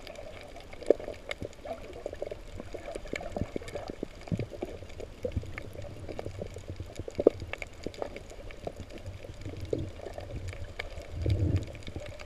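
Underwater sound picked up through a camera housing: muffled gurgling and sloshing water, with scattered sharp clicks and a few louder pops, and a louder low gurgle near the end.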